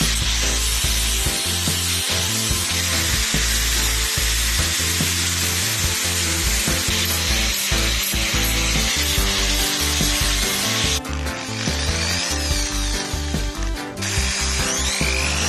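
Angle grinder grinding the edge of a forged steel spatula blade, a steady grinding hiss that drops away about eleven seconds in. Background music plays underneath.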